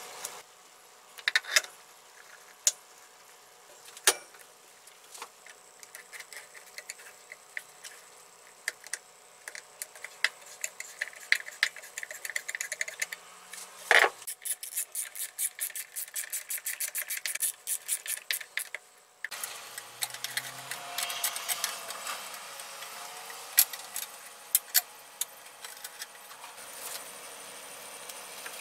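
Metal parts of a portable band saw's chain drive handled during reassembly: scattered light clicks and taps of the roller chain and sprockets, a sharp knock about halfway, then a fast run of clicks. After a sudden change in background, more scattered clicks and handling noise.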